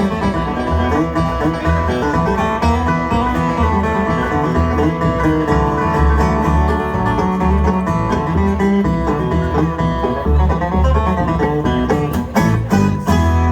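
Bluegrass band playing an instrumental passage after the last sung line, banjo and acoustic guitar to the fore, closing on a few sharp strummed hits near the end.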